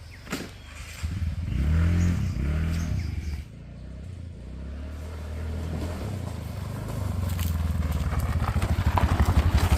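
TVS Ntorq scooter's single-cylinder engine running. It is revved up and back down about one and a half to three and a half seconds in, then pulls away and gathers speed, growing louder toward the end.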